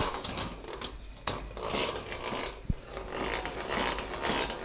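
Tinsmith's rotary flanging machine forming the edge on a sheet-metal chestnut roaster body, a repeated grinding rasp of the rollers and the metal turning through them, with a couple of sharp clicks. The edge it forms is what the roaster's bottom will be seamed onto.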